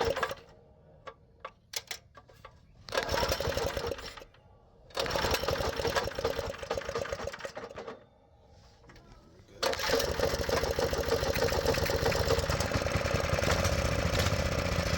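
Small single-cylinder engine of a Baja 5.5 hp mini bike being started with a newly fitted carburetor: it fires and runs briefly twice, dying each time, then catches about ten seconds in and keeps running steadily.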